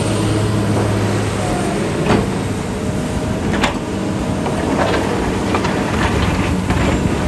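Excavator diesel engine running steadily, with a few sharp knocks and clanks of the bucket and rocks.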